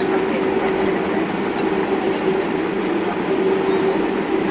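Steady cabin drone of a Boeing 747-400 on the ground, heard from inside near the wing: the engines and cabin air make a constant mid-pitched hum over an even rush.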